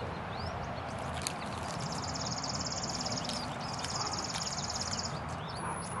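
Songbirds calling: scattered short high chirps, and a rapid, dry, high trill sung twice, each about a second and a half long, starting about two and about four seconds in. Under it runs a steady low rumble.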